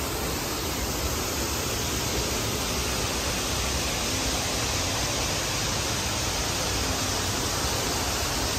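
Steady, even rushing noise with no distinct sounds in it.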